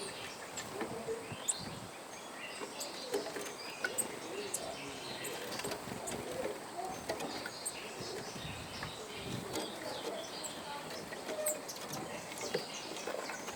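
Small birds chirping, with many short calls scattered irregularly over a faint, steady background.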